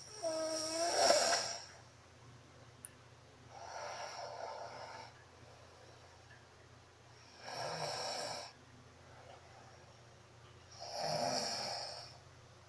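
A woman snoring in her sleep: four snores about every three and a half to four seconds, the first the loudest.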